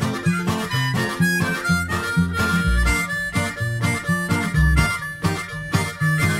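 Background music: an instrumental stretch of a pop-folk song with a steady beat and a harmonica line over guitar.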